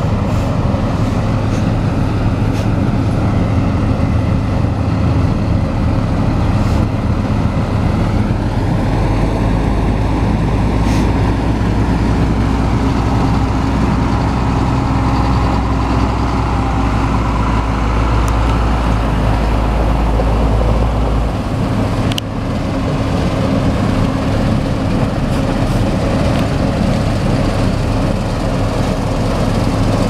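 Case IH combine harvester running while cutting wheat: its diesel engine and threshing machinery make a loud, steady drone. The deepest part of the hum drops away about two-thirds of the way through.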